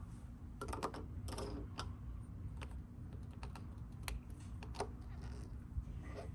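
Irregular light clicks and taps of small parts being handled and fitted at a motorcycle fuel filler cap, over a steady low hum.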